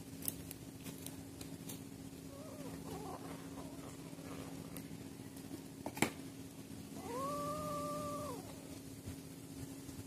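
Kittens mewing while they eat: a few faint, short wavering mews, then one long, level mew lasting about a second and a half near the end. A sharp click comes just before the long mew, over a steady low hum.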